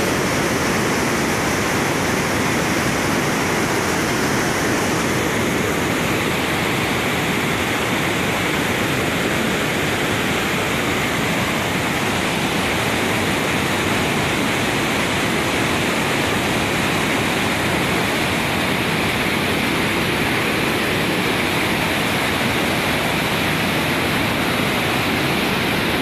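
Flash-flood water rushing over a rocky waterfall in a swollen river, a steady, unbroken roar of fast, heavy flow.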